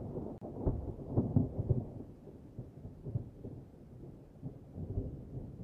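Thunder sound effect: a rumble with a cluster of louder cracks about a second in, fading to a low rumble and swelling again near the end.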